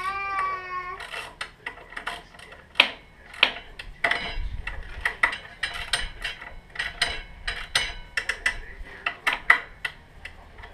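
Metal hand tools clicking, clinking and ratcheting at a motorcycle's front wheel and fork during a front tyre change: quick, irregular clicks, busiest from about four seconds in.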